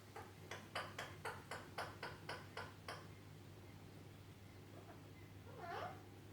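Alexandrine parrot making a faint run of short clicking chirps, about four a second for some three seconds, then a short wavering call near the end.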